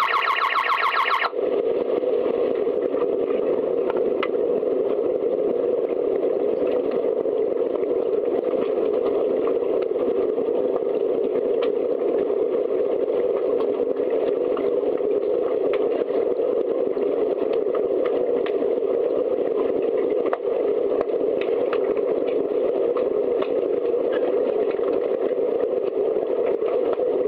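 Background music that stops about a second in, then steady muffled rushing noise with scattered faint clicks, from swimming-pool ambience during an underwater hockey match.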